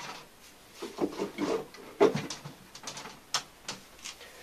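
Scattered soft knocks, clicks and rustles of hands fumbling in the dark for a plug and socket, with a sharper knock about two seconds in and another just past three seconds.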